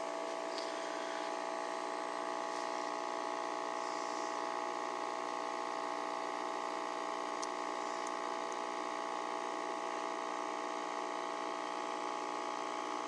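Steady electric hum of an aquarium pump, several fixed tones running unchanged.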